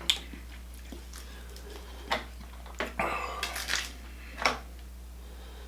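Eating a seafood boil: a few sharp clicks and knocks of food and utensils, with a busier stretch of clatter about three seconds in, over a steady low hum.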